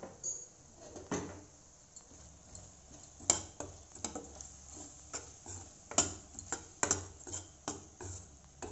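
A steel spoon scraping and clinking against a stainless steel pan while stirring thick masala paste: irregular knocks and scrapes, sparse at first and more frequent from about three seconds in.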